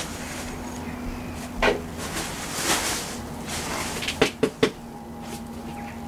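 A few sharp knocks with a brief rustle between them: one knock about a second and a half in, then three quick knocks in a row near the end, over a faint steady hum.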